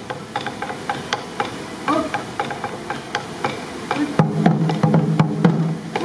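Sansa odori taiko drumming: a quick run of sharp clicks of drumsticks on the drum rims, then from about four seconds in the drum heads struck again in a fast, steady beat.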